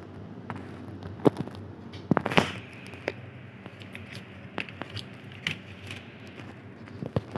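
Handling noise from a laptop motherboard being shifted and set down on a rubber work mat: a scatter of light clicks and knocks, the loudest cluster about two seconds in, over a steady low hum.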